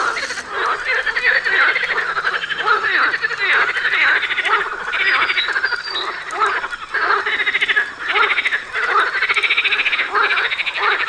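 Frogs croaking loudly in a chorus, many rattling calls overlapping and repeating without a break.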